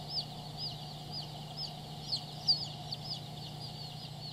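Baby chicks peeping: short, high, falling chirps about two a second, over a steady low hum.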